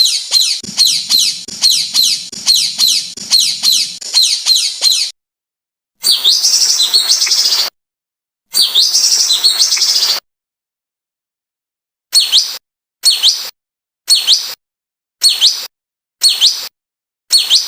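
Recorded songbird calls edited together as a masteran: a fast run of repeated falling high notes, then two longer trilled phrases, then short call phrases about once a second, each segment starting and stopping abruptly with silence between.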